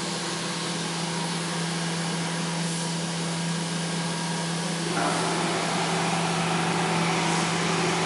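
A machine running steadily: a constant hum with a rushing, blower-like noise over it, getting louder about five seconds in.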